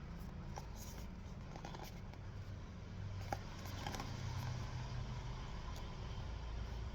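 Light clicks and rustles from hands handling the packaging, over a low steady rumble, with one sharper click about three seconds in.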